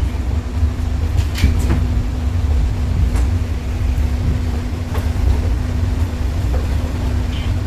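Steady low rumble with a faint even hum from the studio's air conditioning, with a few faint taps.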